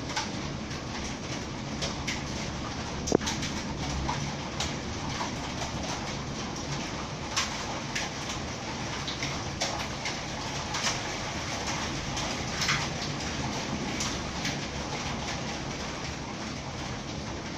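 Steady heavy thunderstorm rain, a constant hiss with many close drops ticking irregularly; one sharp tick about three seconds in is the loudest moment.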